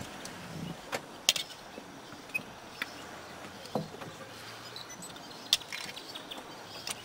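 Quiet outdoor bush ambience with a few scattered sharp clicks and a brief high chirp.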